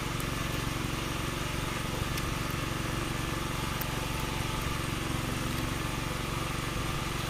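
An engine idling steadily: a constant low hum that does not change in pitch or level.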